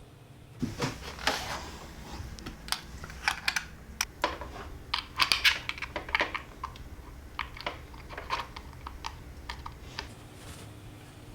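Packaging being handled: an irregular run of sharp clicks, taps and short rustles as the box and its contents are opened and moved.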